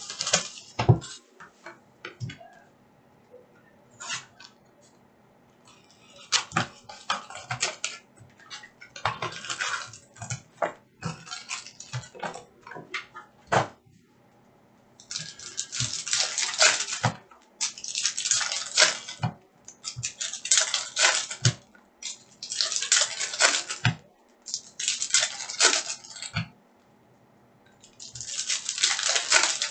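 2019-20 Upper Deck Series One hockey card packs being handled and torn open by hand. The first half holds scattered clicks and short rustles of packs and cards. From about halfway comes a run of crinkly wrapper tearing, one burst every two to three seconds.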